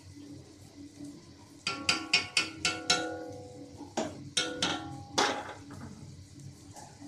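Steel knife clinking and scraping against an iron tawa while frying potato cutlets are pushed together: a quick run of sharp metallic knocks with short ringing, then a few more spaced knocks.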